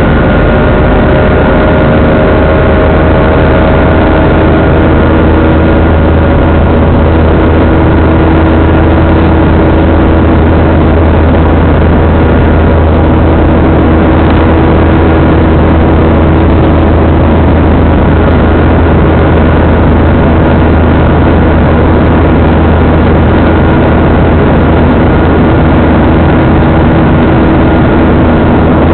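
Jet airliner engines and airflow heard from inside a Gol Boeing 737's cabin in flight: a loud, steady low drone with a few engine tones over it, some sliding slightly lower in the first few seconds.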